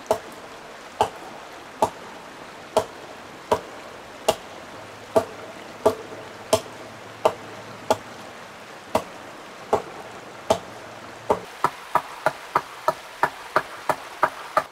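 A hatchet chopping a notch into a log: single sharp blows a little under a second apart, then quicker strokes, about three a second, over the last few seconds.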